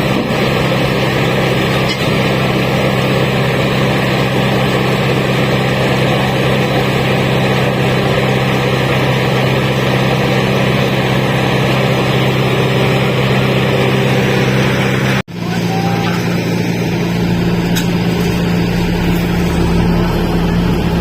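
Heavy diesel engine of road-surfacing machinery running steadily, with a steady low hum and a broad noisy rumble. The sound drops out for a moment about fifteen seconds in, then carries on.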